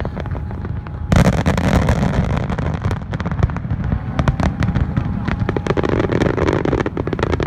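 Aerial fireworks going off: rapid crackling and popping over a low rumble of booms, with a big loud burst about a second in that spreads into a dense wash of crackle.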